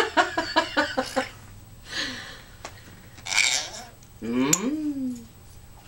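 Timneh African grey parrot vocalizing: a fast run of short repeated notes in the first second, a hissy sound midway, then a whistled call that slides up and down near the end.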